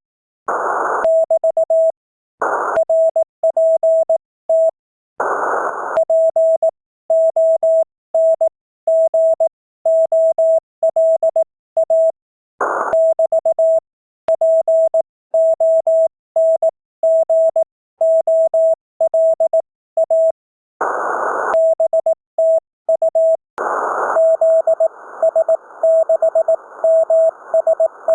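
Amateur radio Morse code (CW) audio: a single steady tone keyed on and off in dots and dashes, sending a contact. Several short bursts of static hiss break in between the keyed characters, and near the end a steady hiss of static runs under the tone.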